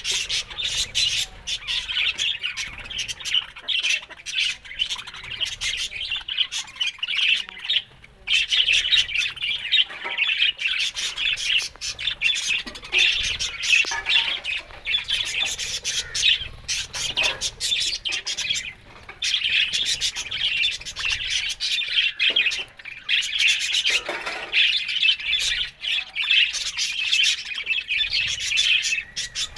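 A flock of budgerigars chattering and chirping nonstop, a dense mix of warbles, squawks and short sharp calls.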